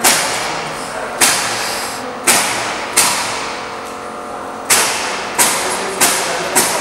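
A series of sharp knocks, each trailing off in a long echo, coming every half second to a second with a longer pause in the middle.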